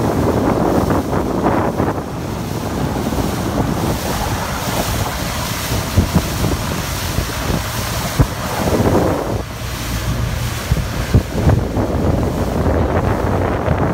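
Wind buffeting the phone's microphone over the steady rush of water from a boat under way.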